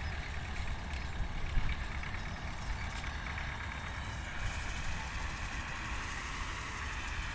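Combine harvester and tractor engines running at a distance during wheat harvesting: a steady machinery drone with a held whine, over an uneven low rumble.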